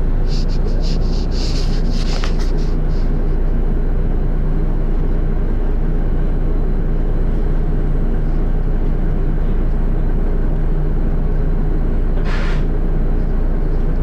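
Volvo B7RLE bus's seven-litre six-cylinder diesel running steadily, heard from inside the saloon, with light clicks and rattles in the first couple of seconds. About twelve seconds in there is a short hiss from the bus's air system.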